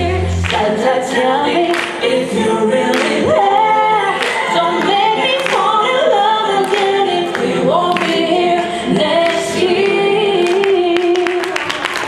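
Voices singing a Christmas song in harmony, the low bass dropping out about half a second in and leaving the singing nearly unaccompanied, with long held notes.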